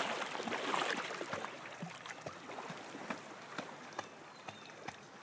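Lake water lapping softly, with scattered small splashes and drips, slowly getting quieter over the first couple of seconds.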